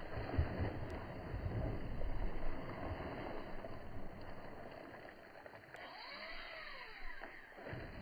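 Water splashing as a hooked tarpon jumps and thrashes at the surface, heard as an uneven wash of noise.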